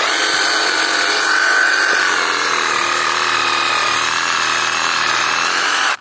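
Parkside Performance PSSAP 20-Li D5 cordless reciprocating saw running steadily while cutting through two small tree stems at the base, its motor whine sagging slightly in pitch under load after about two seconds, then stopping abruptly.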